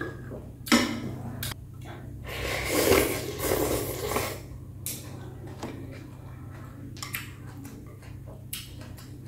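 A person eating bún bò Huế noodle soup close to the microphone: a long slurp of noodles about two to four seconds in, then quieter chewing, with a few sharp clicks of chopsticks against the glass bowl.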